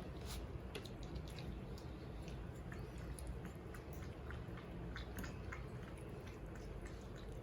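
Cats chewing and eating food, a scatter of small, irregular clicks and crunches.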